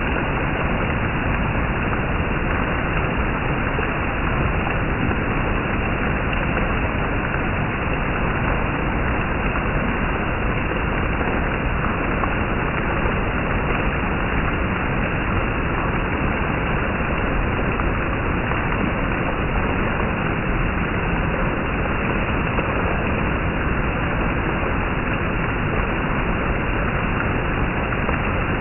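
Steady monsoon rain, an even, unbroken noise that holds the same level throughout.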